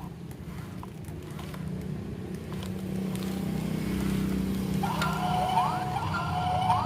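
A steady low motor hum. About five seconds in, a repeating siren-like electronic sound joins it: a held tone with quick rising sweeps.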